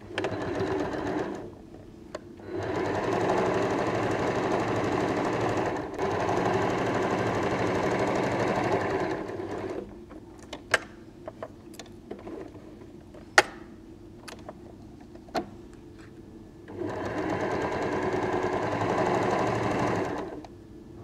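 Electric domestic sewing machine stitching in bursts, top-stitching the seams of a cotton bandana: it runs steadily, stops briefly, runs again for several seconds, then pauses. During the pause in the middle, scattered sharp clicks and taps, before the machine starts up again near the end.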